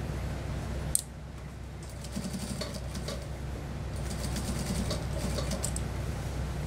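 Industrial single-needle sewing machine stitching suit trousers in two short runs, each a rapid, even patter of needle strokes. A steady low hum sounds throughout, with a sharp click about a second in, after which it quietens.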